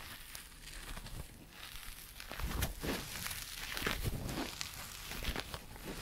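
Yellow-and-green kitchen sponge squeezed and scrunched in the hands close to the microphone, making irregular scratchy rustles.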